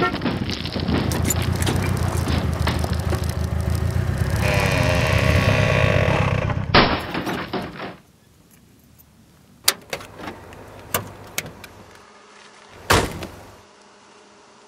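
A vehicle running loudly for about eight seconds, with a sharp knock near the seven-second mark. It then stops, followed by a few scattered knocks and one heavy thump like a door shutting.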